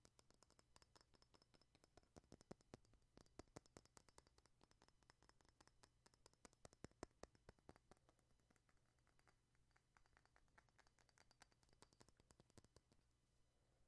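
Fingertips and nails tapping and scratching on a white mortar and pestle: a faint, quick run of small clicks and scrapes, thickest a few seconds in and again about halfway.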